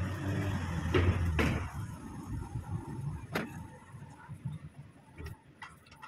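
Car heard from inside the cabin as it drives up out of a car park: a low engine hum, then two thumps about half a second apart as the tyres cross the drain grating at the top of the ramp. A single sharp click follows a little past the middle, with a few faint ticks near the end.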